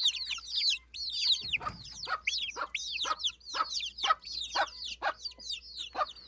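Chickens: a rapid, unbroken run of high, arching peeps, several a second, mixed with short low clucks, as of a mother hen clucking to her chicks while they peep.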